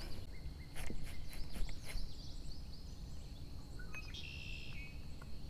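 Quiet wetland ambience: birds calling, including a short stepped call about four seconds in, over a steady high insect whine. A few soft knocks come in the first two seconds.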